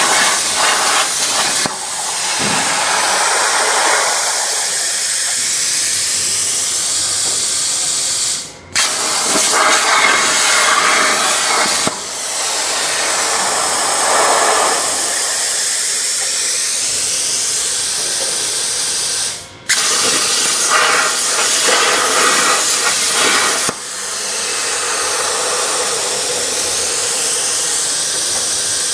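CNC plasma torch cutting 1.5 mm stainless steel sheet: a loud steady hiss from the arc and its air jet. It cuts off abruptly twice, about 9 and 19 seconds in, and restarts moments later as the arc fires on a new cut.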